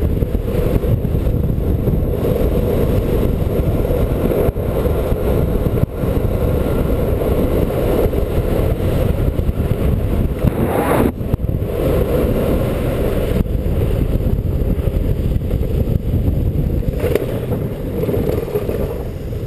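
Longboard wheels rolling fast on asphalt: a steady, loud rumbling roar. About eleven seconds in there is one brief, harsher burst of noise.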